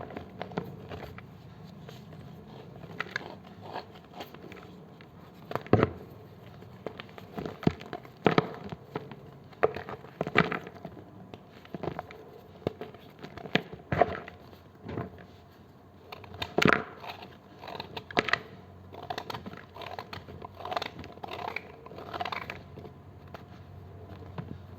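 A knife cutting and crushing blocks of gym chalk: irregular dry crunches and cracks, a few sharper and louder snaps standing out among softer crumbling.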